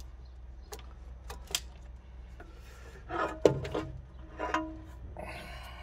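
A cast aluminum valve cover being worked loose and lifted off a 454 big-block Chevy cylinder head, with scattered clicks followed by scraping and knocking of metal. The loudest knock comes about three and a half seconds in, as the cover comes free.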